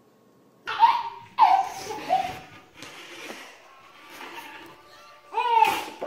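A baby laughing in short bursts, starting about a second in, with another loud burst of laughter near the end.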